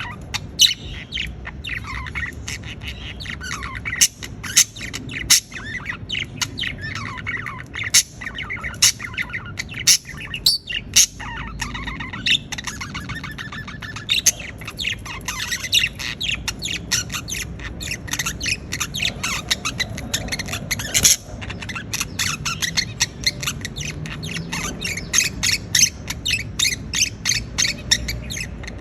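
Budgerigars chattering: a dense, continuous run of quick sharp chirps and squawks with warbling trills in between.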